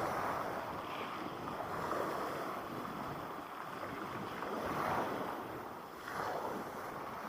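Sea waves breaking and washing onto the beach, coming in surges, with the strongest swells about five and six seconds in.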